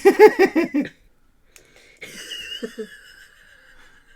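A person laughing: a quick burst of rapid, high-pitched laughs in the first second. A faint hiss with a thin whistling tone follows about two seconds in.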